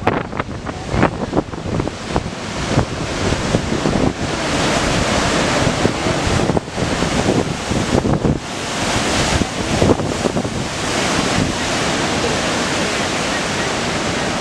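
Large ocean waves breaking and surf washing over the shore, a dense rushing that swells louder about four seconds in and again near eight seconds. Wind buffets the microphone with low gusty thumps, most in the first few seconds.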